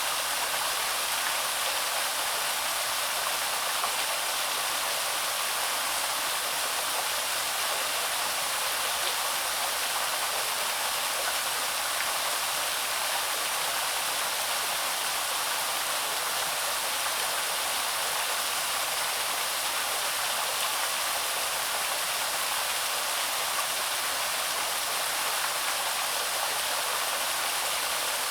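Small cascading waterfall: water pouring and splashing in a steady, even rush, mostly hiss with little deep rumble.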